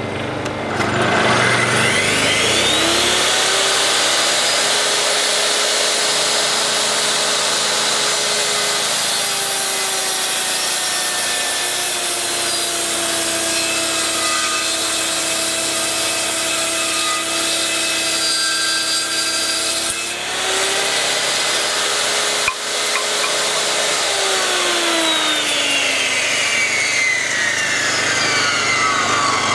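Ridgid portable table saw's electric motor and blade spinning up to speed in the first few seconds, its whine sagging lower while a board is ripped through the blade, then switched off about three quarters of the way through and winding down with falling pitch. A single sharp knock comes shortly before the wind-down, and the Honda EU2000i inverter generator's engine runs underneath, powering the saw.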